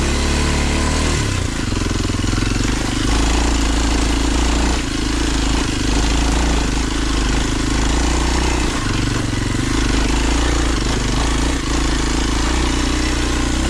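Kawasaki KLX 230's single-cylinder four-stroke engine pulling the bike up a steep, rocky climb, its revs rising and falling every second or two as the throttle is worked, over a steady rush of wind and trail noise.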